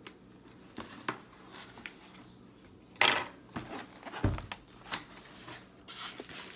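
Cardboard box being cut open and handled: scissors snipping the tape with small clicks, a loud scraping rustle about three seconds in, a dull thump just after four seconds in as the box is set down on the table, then the flaps opened.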